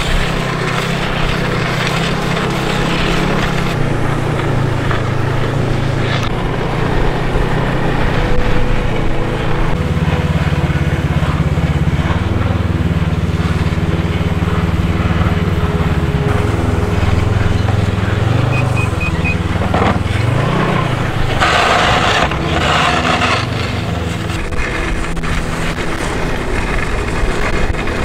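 Snowmobile engine running steadily under way, its pitch shifting with the throttle, with a quick rise and fall in revs about twenty seconds in. A louder rush of noise comes briefly just after.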